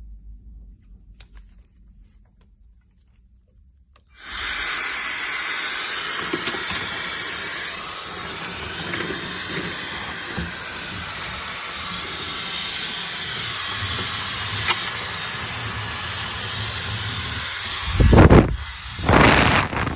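Dyson Supersonic hair dryer switched on about four seconds in, then running with a steady airy hiss and a thin high whine. Two loud low blasts come near the end.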